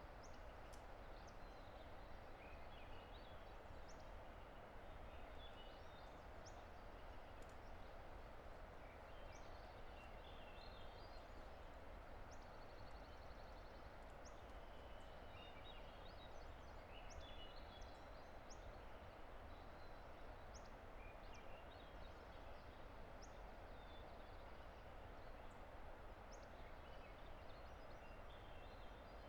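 Distant river rushing steadily, with faint chirps and short trilled songs of small birds scattered throughout.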